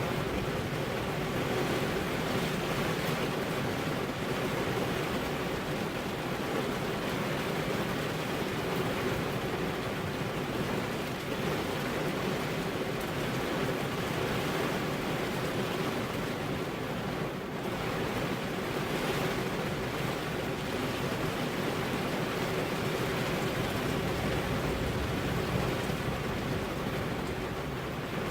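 Steady heavy rain, an even unbroken hiss, with a faint steady hum underneath.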